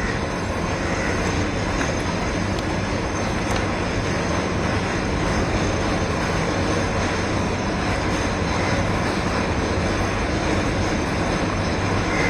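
A steady, even mechanical rumble with no distinct knocks or strokes.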